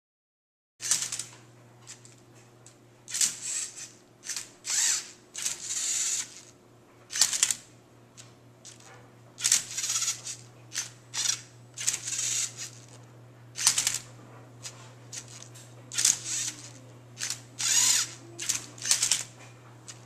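Lego Mindstorms robot's servo motors whirring in short, irregular bursts as its arms grip, flip and turn a Rubik's cube, the cube's plastic layers rasping as they rotate. The bursts start about a second in, over a steady low hum.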